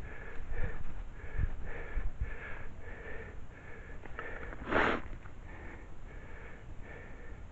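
Ducks calling in a steady run of short quacks, about two a second. A single short, loud breathy rush like a sniff comes about five seconds in, with a few low thumps near the start.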